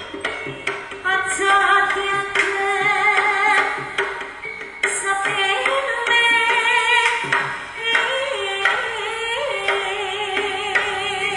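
Javanese jaranan music played live: gamelan-style percussion under a wavering, sung melodic line, over a steady held low tone.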